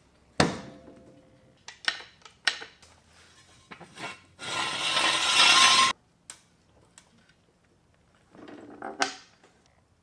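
Steel floor jack and its handle clanking, with one sharp ringing knock, then a loud scraping rush lasting about a second and a half as the jack is rolled across the concrete floor. A shorter scrape comes near the end.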